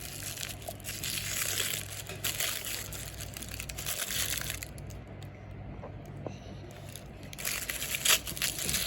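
Plastic packaging crinkling and crackling in the hands as a surprise packet is opened, in two spells: through the first four and a half seconds, then again near the end after a short lull.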